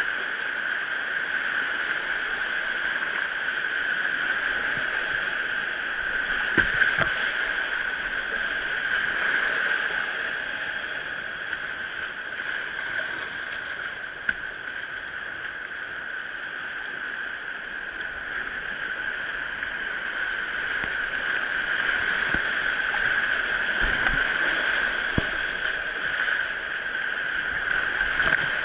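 Steady rushing of a mountain stream running over rapids, with a few brief knocks.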